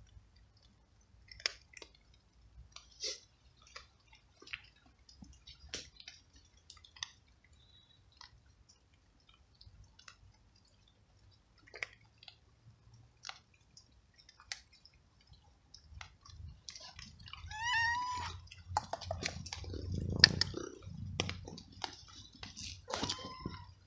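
Young wet tabby cat crunching dry kibble: a scatter of small crunches and clicks at irregular intervals. Near the end it meows twice, with some low rumbling noise between the calls.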